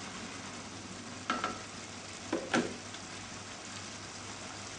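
Chicken curry gravy simmering and sizzling in a frying pan, a steady hiss. A spoon knocks against the pan a few times, about a second and a half and two and a half seconds in.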